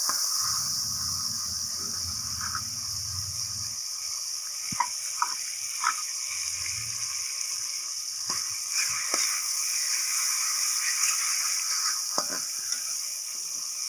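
Fried onions and ginger-garlic paste sizzling steadily in hot oil in a metal pan, cooking off the raw garlic and ginger. A slotted metal spoon stirs through them, with scattered clicks and scrapes against the pan from about a third of the way in.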